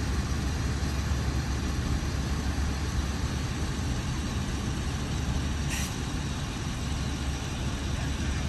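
Fire trucks idling: a steady low engine rumble with no break, and one brief hiss about six seconds in.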